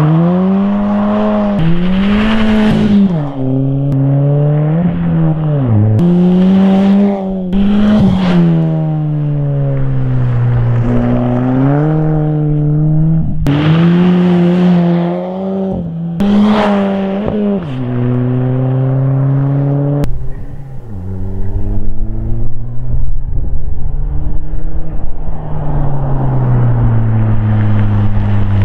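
Dodge Caliber SRT-4's turbocharged 2.4-litre four-cylinder accelerating hard from a launch and through the gears. Its pitch climbs and drops back at each shift, over several runs that cut abruptly from one to the next.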